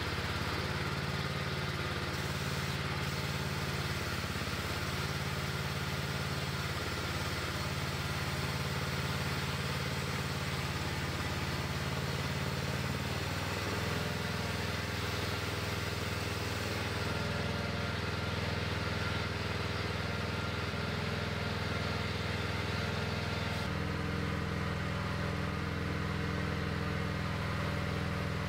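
Cub Cadet riding lawn mower's engine running steadily while the homemade front-end loader's hydraulics are worked; the engine note shifts about halfway through and again near the end.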